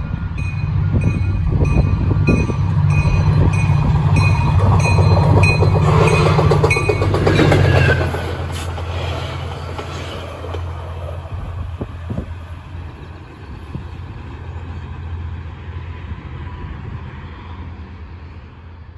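Trinity Railway Express diesel commuter train passing at speed. The locomotive's engine hum builds and peaks with a bell ringing about twice a second, then drops off sharply about eight seconds in. The double-deck coaches roll past with wheels clacking over the rail joints and fade away as the train recedes.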